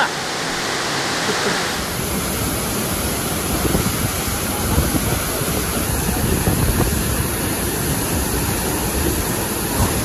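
A large waterfall in full flood: a heavy, steady rush of falling water with a deep low rumble. The falls are swollen with rainwater, with so much force that swimming is impossible.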